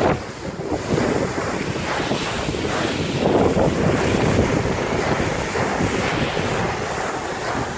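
A volcano board scraping down a slope of loose volcanic gravel, a continuous rushing hiss that swells briefly about three and a half seconds in, with wind buffeting the microphone.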